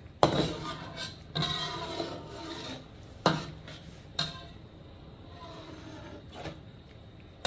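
A utensil stirring vegetables in sauce in a cooking pan, knocking against the metal about five times with short ringing clinks, the first the loudest, and scraping lightly in between.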